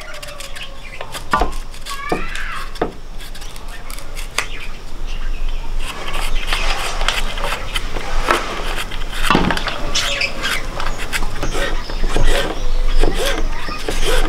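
Repeated crisp cutting clicks of a knife slicing through raw green mango, the pieces cut in the hand against a curved blade. Birds chirp in the background.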